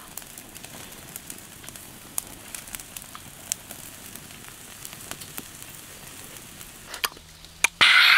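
Open wood fire crackling under goat meat roasting on a spit, a steady hiss with scattered sharp pops. A loud short burst comes just before the end.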